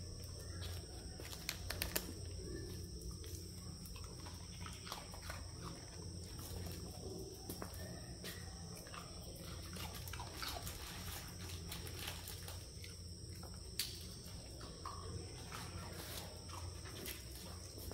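Dogs making faint, short whining sounds, with a few sharp clicks and a steady high tone and low hum underneath.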